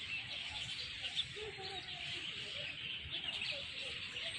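Many small birds chirping together in a dense, continuous chatter, with a few lower calls now and then.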